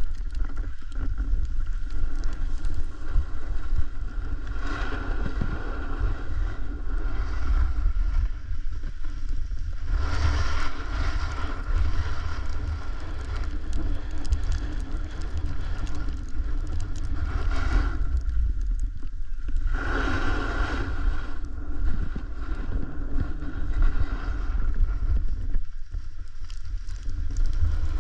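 Wind buffeting the microphone while riding a snowboard down a snowy run, with the board sliding over snow in a hiss that surges every few seconds.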